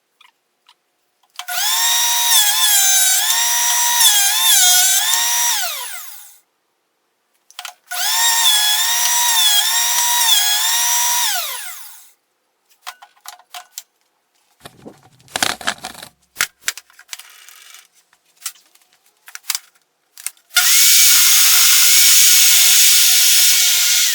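Electric woodworking machine cutting apple wood, run three times for about four to five seconds each: a loud motor whine whose pitch wavers and dips under the cut, falling away as it spins down at the end of each run. Between the second and third runs come scattered knocks and clicks of wood being handled, and the third run, steadier in pitch, is still going at the end.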